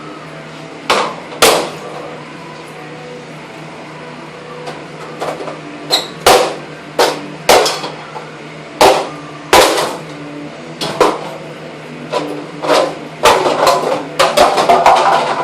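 Hammer blows smashing an old inkjet printer apart: a dozen or so hard strikes at uneven intervals, ending in a quick flurry of hits.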